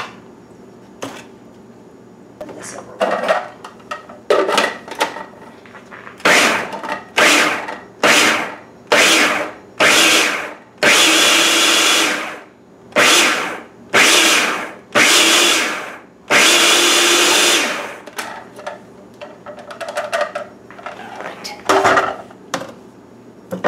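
Countertop food processor pulsed about a dozen times, its motor running in short bursts with two held for over a second, chopping a bowl of smoked tomatoes and peppers into chunky salsa. A few light knocks of handling come before and after the pulsing.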